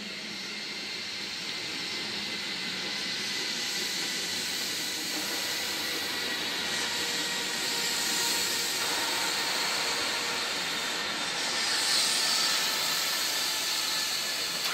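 Seibu Railway electric train, the 4000-series '52 Seats of Happiness' set, running past: a steady hissing rush of wheels on rail that grows louder over the first few seconds. A few faint steady whining tones run through it, and the sound is loudest about three-quarters of the way through.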